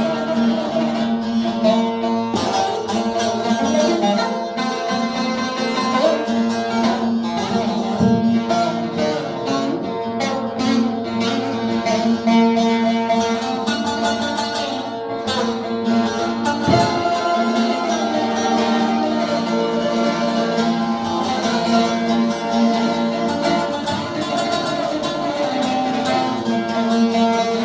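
Music played on a plucked string instrument, with steady sustained notes and a busy run of plucked notes throughout.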